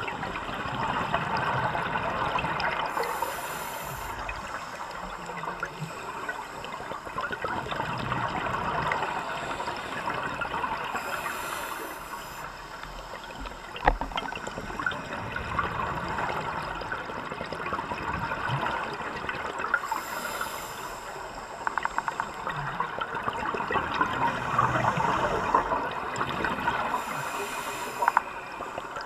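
Underwater sound of a scuba diver breathing through a regulator: a bubbling hiss of exhaled air about every eight seconds over a steady watery rush. One sharp click about halfway through.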